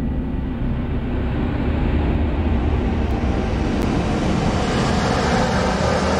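Film soundtrack sound design: a deep, steady rumble with a rushing hiss on top that swells louder over the second half.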